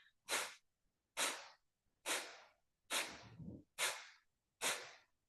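Kapalabhati (breath of fire) breathing: six sharp, forceful exhalations through the nose, a little under one a second, each a short hiss that fades quickly. This is the slower opening round of the technique.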